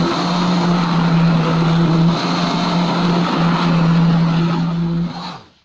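Electric kitchen blender running, blending milk, banana, dates, almonds and honey into a smoothie: a loud steady motor hum that cuts off about five seconds in.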